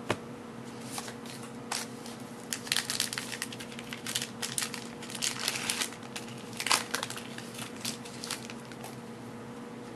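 Trading cards being handled and slid against each other by hand: a run of short, crisp crinkly rustles and clicks, irregular in timing.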